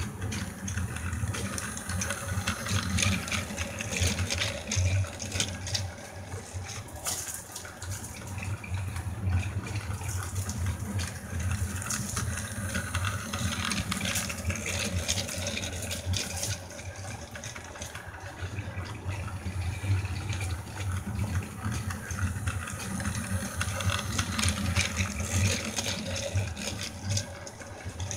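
Battery-powered toy train on plastic track: a steady small-motor hum with the rattle and clatter of wheels and wagons loaded with steel drink cans.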